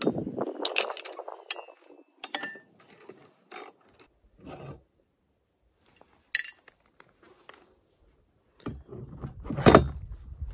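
Metal clinks and scrapes from pliers working the axle pin and hub of a dirt-cart wheel as the old inner-tube wheel is pulled off its axle and a solid plastic replacement wheel is brought up to it. There are a few short ringing clinks, with a louder knock near the end.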